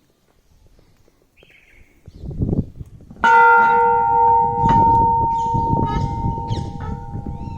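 A metal temple bell is struck once about three seconds in and rings on with a steady hum as it slowly fades. A low rumbling noise runs beneath it.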